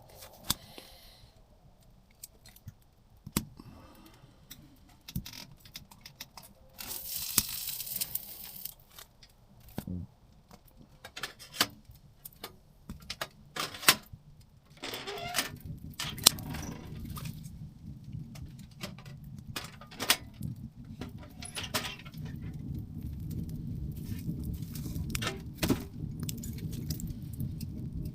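Wood fire in a titanium tent stove running very hot, crackling and popping with sharp metallic ticks. About halfway in a steady low rumble of the fire drawing joins the crackle.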